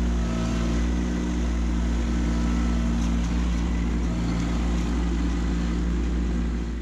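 Kubota B2601 compact tractor's three-cylinder diesel engine running steadily, with a heavy low rumble. The sound starts to drop away at the very end.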